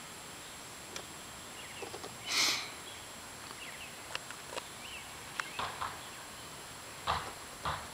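Outdoor ambience with a few faint sharp clicks and several brief rustles, the loudest about two and a half seconds in, plus a few faint high chirps of small birds.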